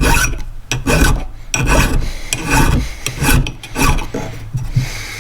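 Hand file, a mill file, rasping back and forth over freshly hacksawed metal to dress the cut end, in steady repeated strokes of about one and a half a second.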